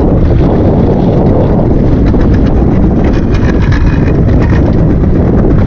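Loud, steady wind buffeting the microphone on a small boat at sea, a dense low rumble throughout.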